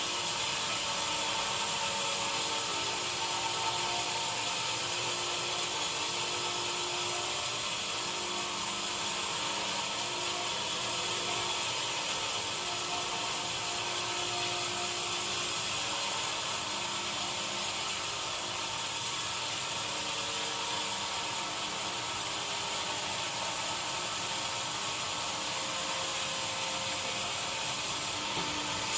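Sawmill machinery running steadily, with a hissing, whining sound of sawing wood and no breaks or separate impacts.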